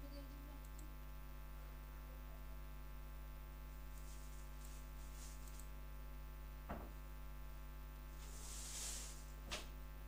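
Steady low electrical mains hum from the recording setup, with two sharp mouse clicks about three seconds apart and a brief soft hiss just before the second.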